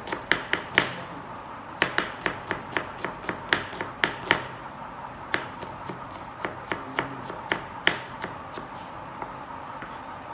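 Chef's knife chopping a small red onion on a plastic cutting board: a quick, irregular run of sharp taps, about two or three a second, that thins out and softens near the end, over a faint steady background hum.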